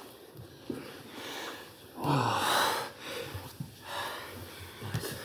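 Grapplers breathing hard while rolling, with one loud, forceful exhale about two seconds in and a few short scuffs and thumps of bodies on the mat.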